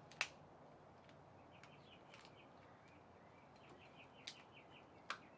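Quiet background with faint bird chirps, broken by a sharp click just after the start and two smaller clicks near the end.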